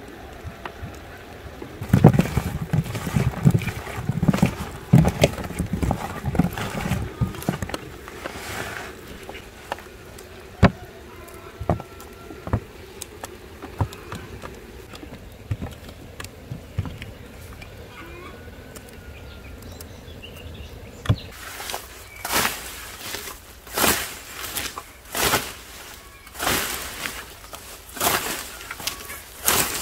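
A scythe swishing through tall grass in regular mowing strokes, about one every second and a quarter, in the last third. Before that come a run of knocks and rustles and a few sharp clicks of handling.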